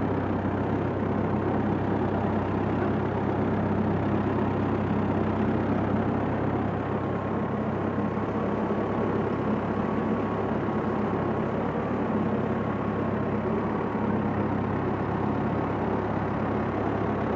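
Small farm tractor's engine running at a steady speed while driving a PTO-shaft hay rake, heard from the driver's seat.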